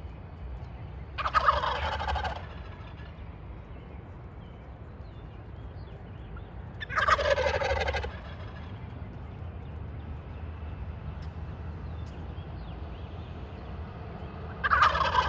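Wild turkey toms gobbling: three loud, rattling gobbles about a second each, spaced some six seconds apart, the last near the end. A low steady rumble runs underneath.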